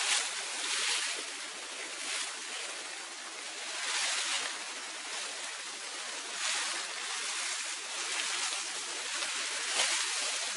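Armfuls of dry, leafy branches rustling as they are lifted and laid onto a lean-to shelter frame. The rustling comes in swells every second or two over a steady hiss, and the loudest comes near the end.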